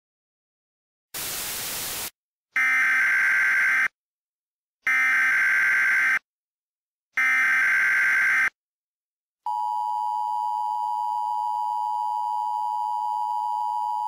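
Emergency Alert System opening sequence: a one-second burst of static, then three short screeching bursts of SAME header data tones, a second apart, then from about nine and a half seconds the steady two-tone EAS attention signal.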